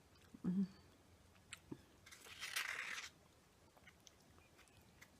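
Close-up eating sounds from a Popeyes fried chicken meal: small wet mouth clicks and smacks, with a louder crunchy stretch of about a second starting around two seconds in.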